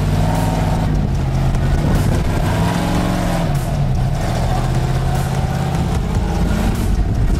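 Engine of a lifted off-road 4x4 revving up and down under throttle while crawling up a rock ledge: the revs climb about a second in, drop back near four seconds, hold, then rise again near the end.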